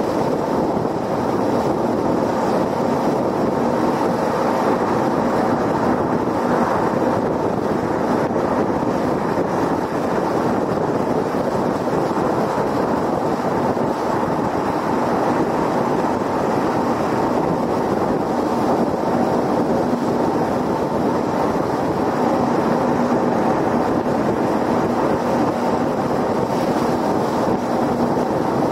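A car at highway speed: steady road noise of tyres on the pavement mixed with wind noise.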